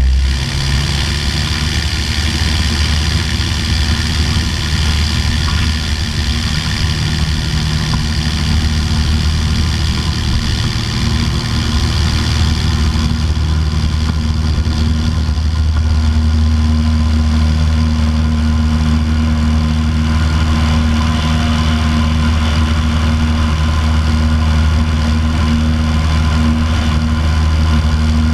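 Piper Pacer's piston engine and propeller running at takeoff power, a steady drone with some wind noise, its tone shifting slightly about halfway through as the plane lifts off and climbs.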